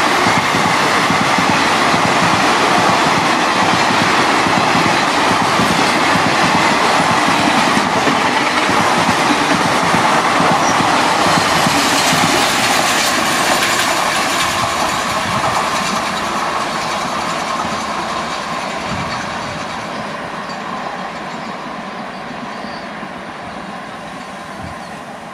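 Express train's passenger coaches rushing past at high speed, wheels running on the rails with a dense clatter. The noise fades steadily over the last ten seconds as the train recedes.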